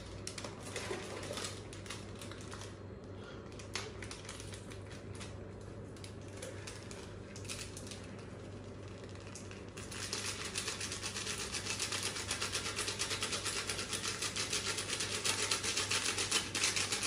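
A metal spoon stirring a thick spice marinade in a metal pot, clicking and scraping against the pot. Quiet and uneven at first, then from about ten seconds in it becomes fast, regular stirring that grows louder.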